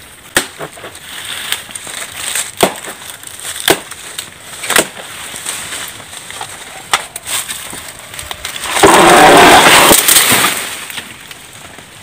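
Machete chopping into a banana plant's soft trunk: five or six sharp chops a second or two apart. About nine seconds in comes a loud rustling crash lasting over a second.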